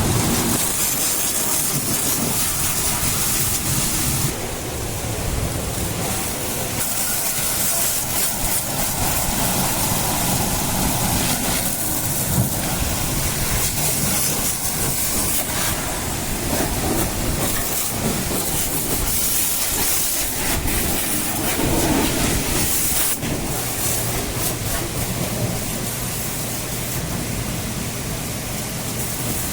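High-pressure water jet spraying against a JCB 3DX Plus backhoe loader, its hiss rising and falling as the spray moves over the machine, with a steady motor hum underneath.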